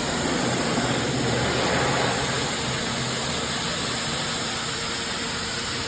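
PowRyte electric pressure washer running and spraying: a steady hiss of the high-pressure water jet over a low, even hum from the pump motor.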